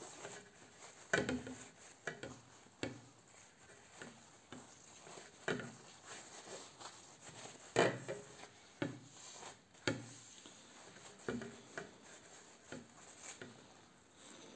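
Paper towel rubbing over a clear plastic HJC i90 helmet visor as its inner side is cleaned, with irregular light clicks and knocks as the flexible visor is handled and shifted against a wooden table.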